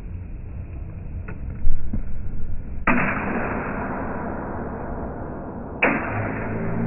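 Two sudden hits of steel training sabers, about three seconds apart, each slowed down and drawn out into a long, fading, noisy tail.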